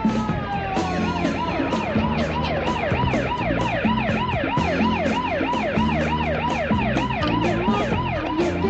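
Fire engine siren: a falling wail at the start changes about a second in to a fast yelp, rising and falling about three times a second, and goes back to a wail near the end. Underneath runs a funk groove with a steady percussion beat and bass.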